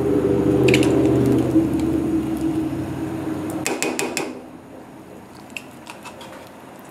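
A spatula scrapes tomato paste out of a metal can over a stainless steel stockpot, with a quick run of clinks against the can and pot about halfway through. A low droning hum fades out over the first couple of seconds.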